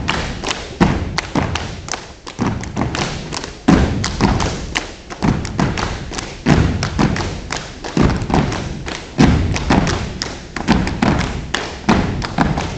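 A step team stomping in unison on floor mats, a fast rhythmic pattern of heavy thuds with sharper slaps and taps between them, ringing in a gymnasium.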